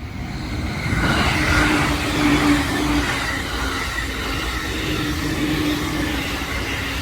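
Electric train passing a level crossing at high speed; its rush builds sharply about a second in and stays loud.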